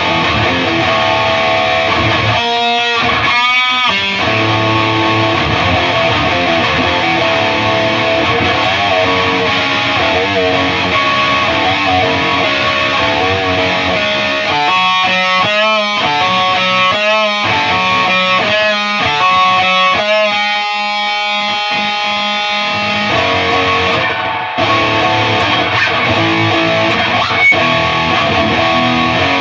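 High-gain distorted electric guitar played through a Peavey 6505 MH head and a Mesa 2x12 cabinet. Riffs of held notes are broken by short stops about three and four seconds in, and there is wide vibrato on sustained notes around the middle.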